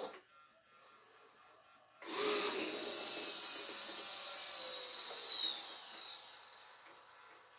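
Hobby servo motors in an InMoov humanoid robot's arm and hand whirring as the arm swings down and the hand comes up to the chest. The sound starts suddenly about two seconds in, carries a whine that glides in pitch, and fades out near the end.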